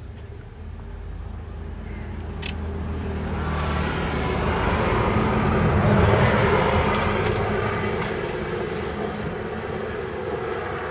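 A vehicle passing on the road: its noise swells to loudest about halfway through and then fades, over a steady low hum.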